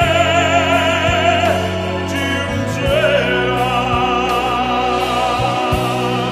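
Operatic tenor singing long held notes with a wide vibrato over an orchestra holding sustained chords, with a few soft timpani strokes underneath.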